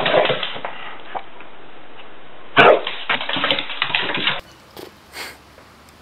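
Sounds from a white dog: a short, rough, crackling burst at the start, then a longer one lasting nearly two seconds from about two and a half seconds in.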